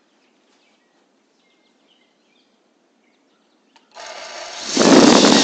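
Faint birds chirping over a quiet background. About four seconds in, a much louder sound with many steady tones cuts in and grows louder.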